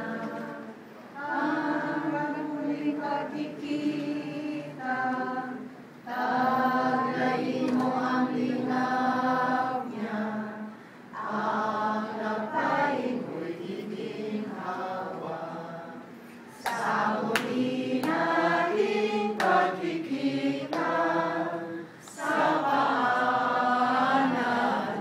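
A small group of voices singing a song together, in sung phrases with short breaks between them. A few sharp clicks come through about two-thirds of the way in.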